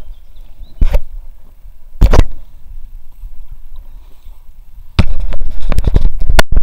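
Loud, close thumps and knocks from a person shifting about in an inflatable kayak, near the microphone: one about a second in, another at two seconds, then a rapid flurry of knocks over the last second and a half.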